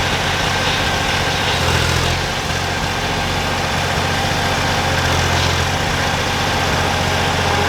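Case skid steer's diesel engine running steadily at idle.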